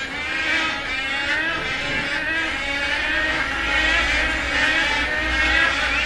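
Wood storks calling, many overlapping wavering calls in a continuous din, with a low rumble joining underneath about three and a half seconds in.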